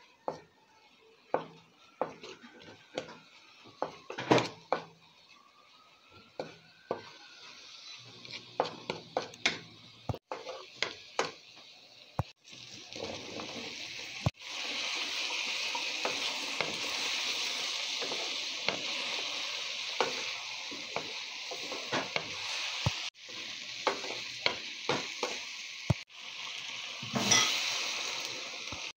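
Spices, onion and tomato being stirred in a hot pan, with sharp knocks and scrapes of a utensil against the pan. About 14 s in a steady, louder sizzle starts as sliced potatoes go into the hot oil, and the stirring knocks go on over it.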